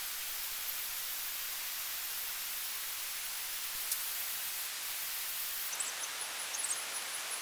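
A steady, even hiss, strongest in the high range, with a faint tick about four seconds in.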